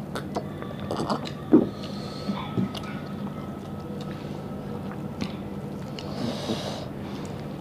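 Eating by hand: fingers mixing rice and mutton curry, chewing, and small clicks and smacks, the loudest about a second and a half in, over a faint steady hum.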